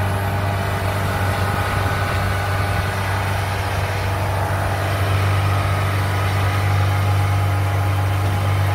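Kubota DC-70 combine harvester's diesel engine running steadily as the tracked machine edges off the lane onto the grass bank, getting a little louder about five seconds in.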